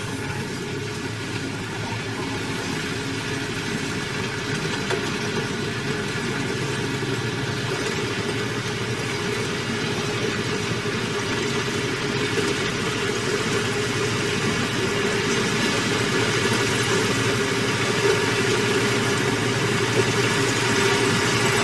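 Engine of a heavy construction machine running steadily, growing gradually louder.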